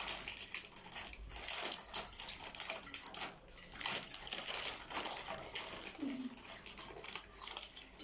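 People eating spicy instant noodles: repeated short slurps and chewing, with small clicks of utensils against bowls.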